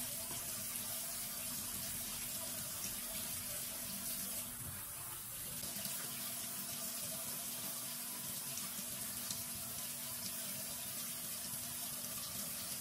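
Water running steadily from a bathroom sink faucet.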